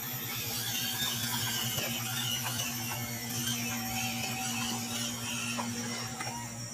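WPL D12 RC pickup truck's small electric motor and gearbox whirring and whining as it drives loaded over dirt, the whine's pitch wavering with the throttle over a steady low hum.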